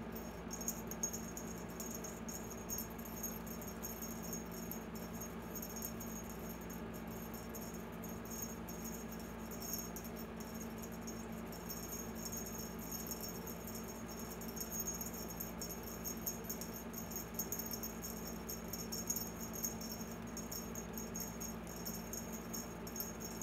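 Cat wand toy being jiggled: a faint, continuous high jingling rattle with small flickers all the way through.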